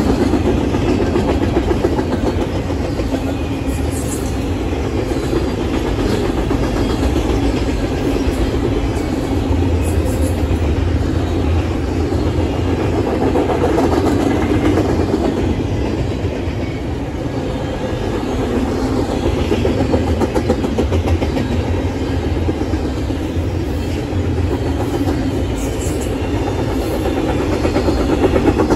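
Double-stack intermodal freight train's container-loaded well cars rolling past, with their steel wheels running on the rails in a steady, continuous noise.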